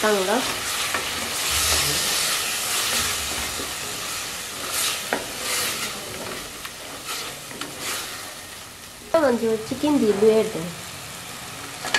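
Onion-tomato curry masala sizzling in an aluminium pot while a wooden spatula stirs and scrapes through it in repeated strokes.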